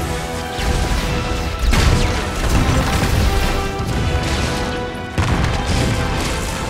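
Film battle soundtrack: a sustained orchestral score under heavy crashes and explosion booms, with big hits about half a second in, just before two seconds, and again just after five seconds.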